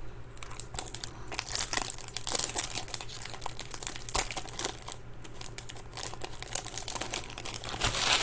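Foil wrappers of 2021 Topps Chrome baseball card packs crinkling and tearing as packs are ripped open by hand: a dense, irregular run of crackles.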